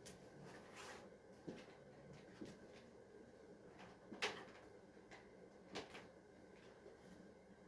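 Faint, scattered clicks and knocks of something being handled over quiet room tone. The sharpest knock comes about four seconds in, and another near six seconds.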